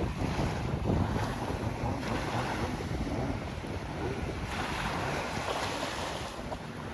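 Ocean surf washing on a beach, with wind buffeting the microphone in a low rumble. A wave's wash swells up about four and a half seconds in and fades near the end.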